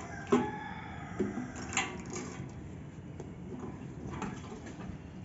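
Clicks and knocks of a scooter's fuel tank and its filler cap being handled and moved, a few sharp ones with the loudest about a third of a second in.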